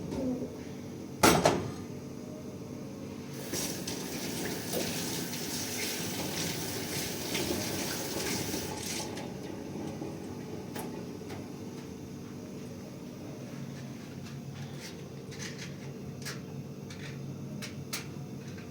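Pots and dishes being handled: one loud clank about a second in, then several seconds of rushing noise, then a few light clinks.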